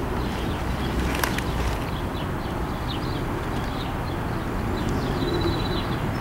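Canada goose goslings peeping in short, high chirps scattered all through, over a steady low rumble of background noise.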